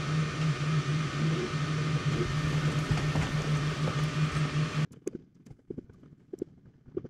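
Hansmaker F1 Pro 20-watt fiber laser engraver marking a steel utility blade: a loud steady hum and hiss with a low buzz that pulses on and off. It cuts off suddenly about five seconds in, leaving only faint irregular ticking.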